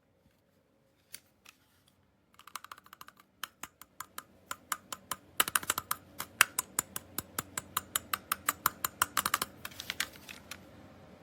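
A rapid run of light, sharp clicks, about three to five a second. It starts about two seconds in and stops shortly before the end.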